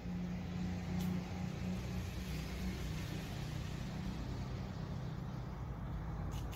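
Steady low background rumble with a faint hum, stronger in the first few seconds, and a single light click about a second in.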